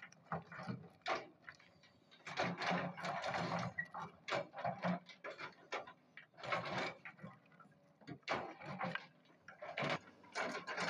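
Doosan DX225 excavator's steel bucket scraping and scooping broken rock, with stones clattering in irregular bursts of about a second and short pauses between them.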